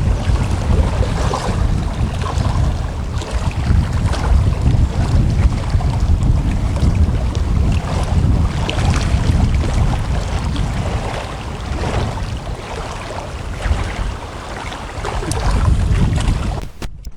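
Strong wind buffeting the microphone in gusts, over the wash of choppy waves on shallow water. The sound briefly drops out just before the end.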